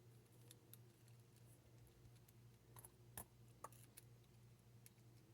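Near silence with a faint steady hum and a few faint, sharp clicks and taps, the loudest about three seconds in, from a padlock and lock picks being handled.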